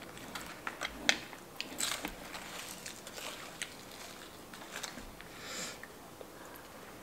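Close-miked eating sounds: a person chewing and crunching food, with a few sharp clicks and short crunchy bursts spread through the quiet.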